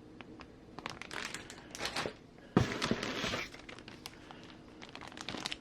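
Plastic packaging crinkling and rustling as bagged model kit parts are handled, with small clicks throughout and a louder burst of crinkling about halfway through.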